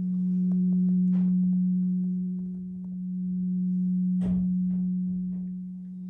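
Large bronze church bell humming after being rung: one low steady tone that swells and fades about every three seconds, with a faint knock about four seconds in.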